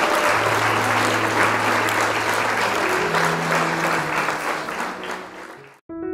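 Applause with held music notes underneath, fading out near the end. A short piano tune starts just before the end.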